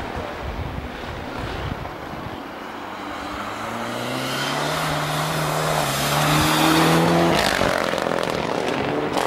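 Rally car engine at full throttle as the car approaches, its note rising steadily and growing louder for several seconds. About seven seconds in the note breaks off sharply with a short rush of noise as the car goes by, then carries on at a lower pitch.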